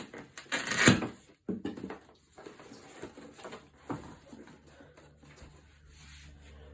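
Cardboard box being handled and opened: irregular rustling and scraping of cardboard, louder about a second in, with a sharp knock near four seconds.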